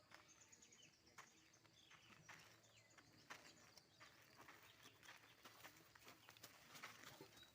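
Faint outdoor ambience: a few short, falling bird chirps and many scattered soft clicks and crackles.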